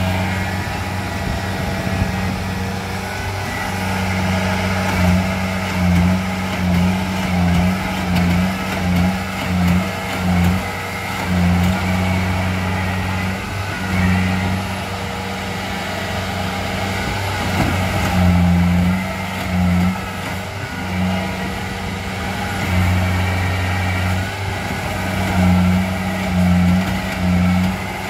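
Compact tracked rice combine harvester running while it cuts rice: a steady engine hum under a clatter of machinery, its level swelling and dipping every second or so.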